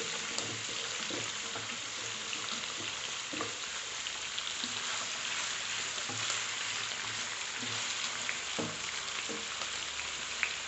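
Shallots, green chillies and cashews sizzling in hot ghee in one pan and sliced potatoes frying in oil in another: a steady crackling sizzle. A wooden spatula stirs and knocks against the pans now and then.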